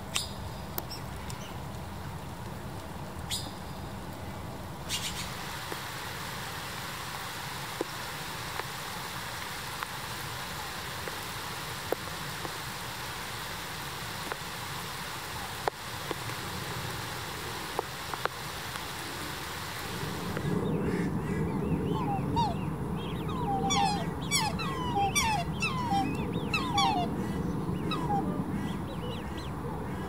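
Steady rain falling on a lake, then about twenty seconds in, a run of many quick, high peeps from black swan cygnets over a louder, lower background.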